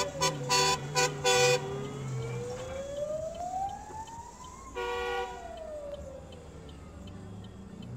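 Fire truck siren wailing, its pitch rising and falling slowly, about once every three and a half seconds. Short pitched blasts come in quick succession over the first second and a half, and one longer blast comes about five seconds in.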